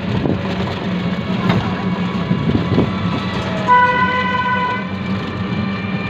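Steady running hum and knocking rattles of a passenger rickshaw moving along a street. A vehicle horn toots once, for about a second, a little past the middle.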